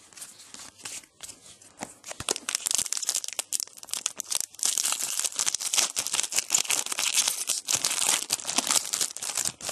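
A trading card pack wrapper being torn open and crinkled by hand: sparse crackles at first, then dense, louder crinkling from a couple of seconds in.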